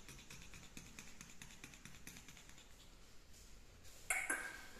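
Faint, rapid clicking of small scissors snipping a Shih Tzu puppy's fur, with a short louder rustle about four seconds in.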